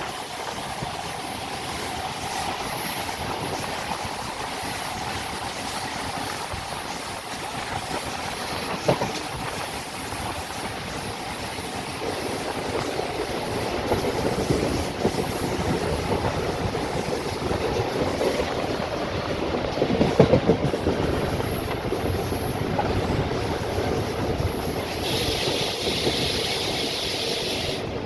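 Train running along the track: a steady rumble with wheels clattering over the rail joints, growing louder about halfway through. There is a sharp knock about nine seconds in, and a high hiss near the end.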